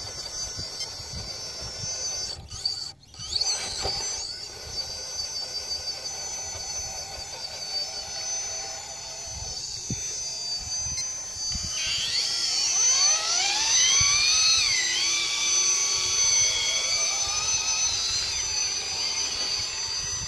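Electric motors and geared drivetrains of RC rock-crawler trucks whining as they climb over rock, the pitch rising and falling with the throttle about two thirds of the way in.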